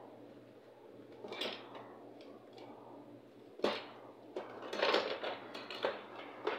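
Workbench handling noises: a sharp knock a little past halfway, then a few seconds of rattling and scraping as tools or parts are moved about, over a steady low hum.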